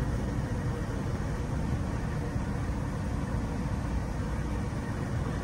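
Steady low rumble with a hiss over it: the ambient noise aboard a tanker lying at a single buoy mooring.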